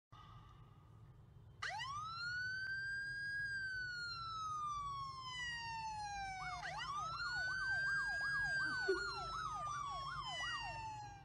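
Recorded emergency-vehicle siren played from a smartphone. A wail rises about a second and a half in and falls slowly, then rises again with a fast yelp warbling over it, about three sweeps a second.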